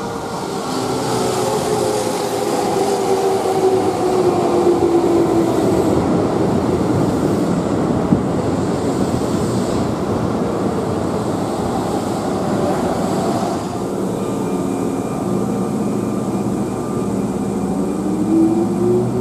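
Keihan 6000 series electric train pulling in along the platform and braking: its motor whine falls steadily in pitch over the first few seconds over the rumble of the wheels on the rails. The rumble eases after about fourteen seconds, and a rising whine starts near the end.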